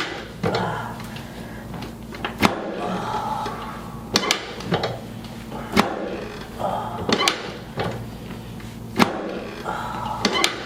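Chiropractic adjustment on a patient: about ten sharp clicks and knocks at uneven intervals as the spine is worked. The patient feels it.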